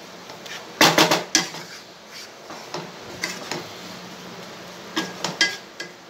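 Spatula knocking and scraping against a non-stick frying pan while stirring fried vegetables and egg, with a cluster of sharp knocks about a second in and a few more about five seconds in.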